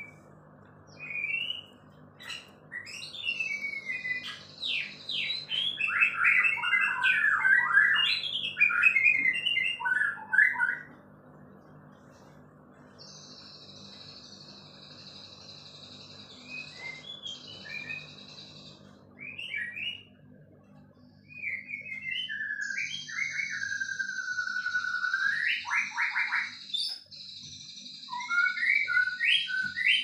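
A songbird singing, with rapid, varied chirps and whistled phrases that are loudest in the first third. Long, high, buzzing trills take over in the second half.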